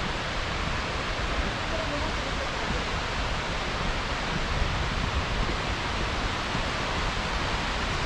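Whitewater of Yudaki falls rushing steadily.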